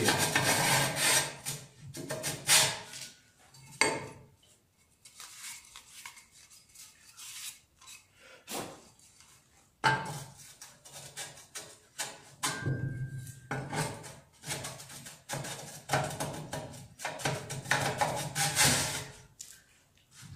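Steel sleeve slid up and down a steel pipe column by hand, metal scraping and rubbing in repeated strokes, with a pause in the middle and a short squeak about halfway through. The fit is a little tight, with rough spots still to wear in.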